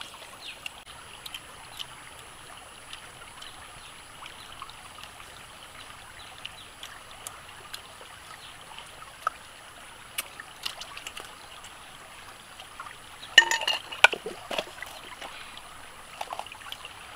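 Shallow stream trickling over rocks, a steady wash of water, with scattered small clicks and snaps throughout and a brief louder cluster of sharp sounds about thirteen seconds in.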